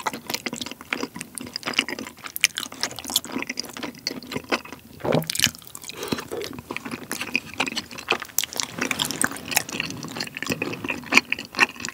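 Close-miked wet mouth and chewing sounds of a person eating chewy tteokbokki rice cakes in thick spicy sauce: many small, irregular clicks and smacks.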